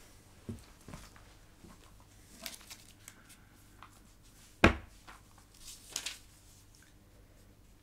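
Light paper rustles and small handling knocks of book pages being leafed through, with one sharp knock about four and a half seconds in.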